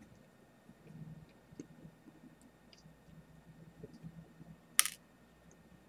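Small faint clicks and ticks of a screwdriver working the tiny screws out of a Logitech G9X mouse's plastic shell and board, with one sharp click near the end.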